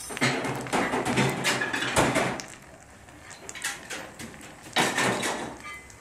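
Irregular bursts of noise and clatter in an iron foundry as molten iron runs from the furnace tap into a hand ladle. The sound is loudest in the first two seconds and again near the end, with a quieter stretch in between.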